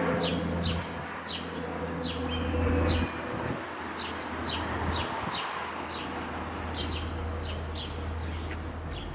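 Low, steady drone of the departing Cessna 208 Grand Caravan's three-bladed propeller and PT6A-114A turboprop, with a brief dip about three seconds in. Over it run a steady high insect buzz and short falling chirps, a few a second.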